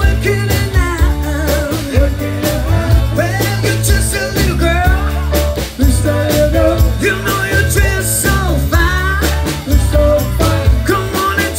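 Live pop-rock band playing, with a male lead vocalist singing over electric guitar, a steady bass line and drums hitting a regular beat.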